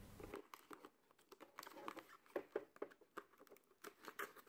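Faint, scattered small clicks and rustles of a small packaging box being opened and handled by hand.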